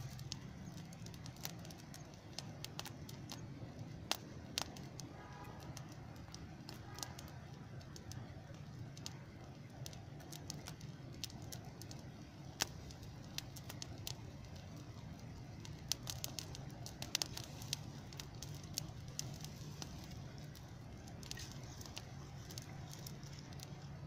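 Open fire of dry grass and brush burning, with scattered sharp crackles and pops over a steady low hum. The crackles bunch together around two-thirds of the way through.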